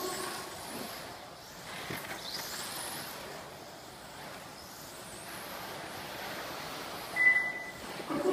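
Electric motor of a 1/12-scale modified-class RC car whining, rising in pitch twice as the car accelerates out of corners, over the hiss of its tyres on the track. A short high beep sounds near the end.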